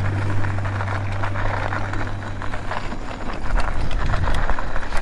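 Mobility scooter rolling over a loose gravel road, its tyres crunching and rattling over the stones. A steady low hum runs under it and fades out about halfway through.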